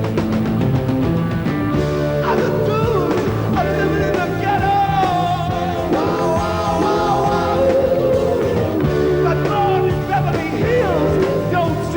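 Rock band playing live, an instrumental passage with a lead melody that bends and glides in pitch over steady bass and drums.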